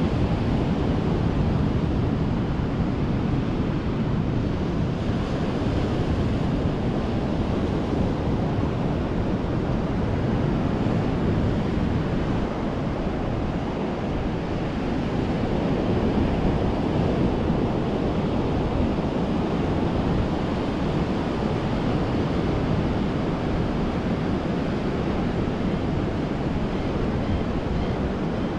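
Ocean surf washing onto the shore as a steady, rushing noise that swells and eases slowly.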